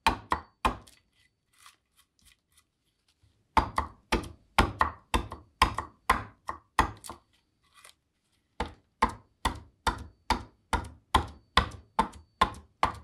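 Bowl adze chopping into green black walnut across the grain: sharp thunks about two a second, in three runs, pausing about a second in and again around seven seconds in.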